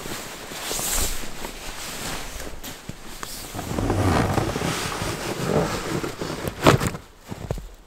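Sleeping-bag fabric rustling and being handled, then boots crunching through snow, with a short sharp thump near the end as the bag is set down on a sled.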